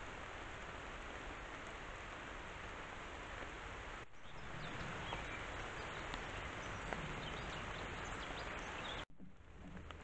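Steady hiss of woodland ambience through a trail camera's microphone, with a few faint ticks. It cuts out for an instant about four and nine seconds in.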